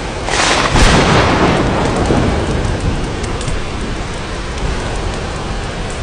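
A sudden thunderclap about a third of a second in, rolling away over two to three seconds, over a steady wash of rain.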